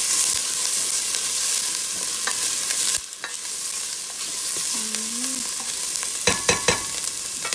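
Diced garlic and red onion sizzling in oil in a stainless steel pot while being stirred with a spatula; the sizzle eases a little about three seconds in, and near the end the spatula knocks against the pot a few times.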